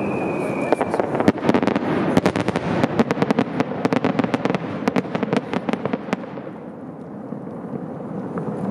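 Aerial fireworks shells bursting, with a dense run of sharp crackling pops from about a second in that thins out after about six seconds, over a continuous low rumble. A faint falling whistle fades out at the start.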